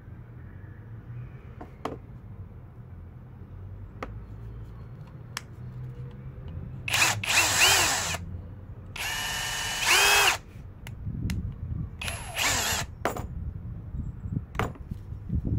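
Parkside Performance cordless stubby impact wrench run with no load in three trigger pulls: its motor gives a high whine. The first short pull, about seven seconds in, spins up and winds down. The second, about nine seconds in, holds a steady pitch for over a second, and a third short burst follows about twelve seconds in. Before these there are a few faint clicks.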